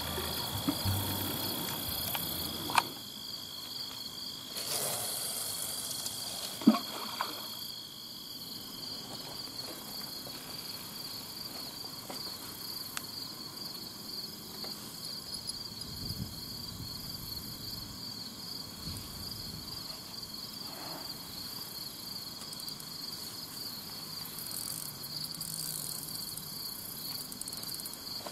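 Insects chirring steadily, a continuous high trill with a second, pulsing trill just above it. Two sharp clicks come in the first seven seconds, the second one the loudest.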